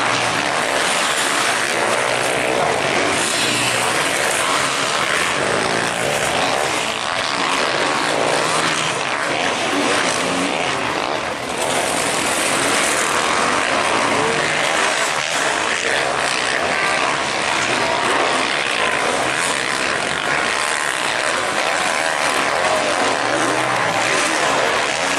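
Several motocross race bikes' engines running hard around the track, revving up and down in a dense, continuous buzz.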